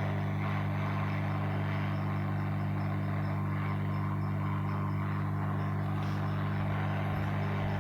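Hot air rework station blowing steadily: a constant fan hum with a rush of air.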